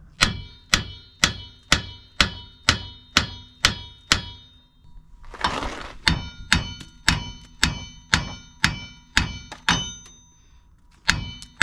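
Steel hammer pounding on a seized bottom joint of a 1997 Chevy Silverado's front suspension to knock it loose. The blows are steady, about two a second, and each one rings like metal. There is a short rushing noise about halfway and a pause near the end.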